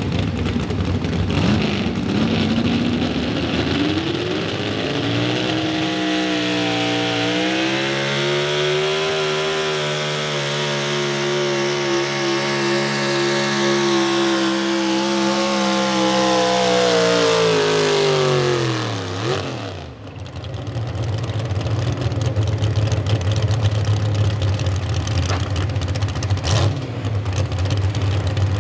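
Pro stock 4x4 pulling truck's big-block V8 on a single four-barrel carburetor at full throttle, dragging a weight-transfer sled. The revs climb over the first several seconds and hold high for about ten seconds, then fall away sharply about two-thirds of the way through as the pull ends. After that the engine settles to a low, steady idle.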